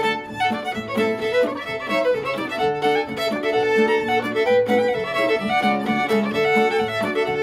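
Fiddle playing a Métis reel, with nylon-string guitar strummed as accompaniment; the fiddle carries the tune in quick, continuous notes.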